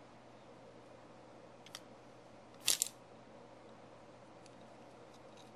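Hard plastic Bakugan toy (Helix Dragonoid with Battle Gear) snapping open on its gate card: a faint click, then a louder sharp double click about a second later, over a faint steady room hum.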